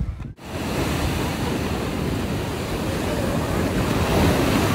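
Sea waves breaking and washing up a sandy beach, a steady loud rush, with wind buffeting the microphone. It cuts in abruptly after a brief drop-out just after the start.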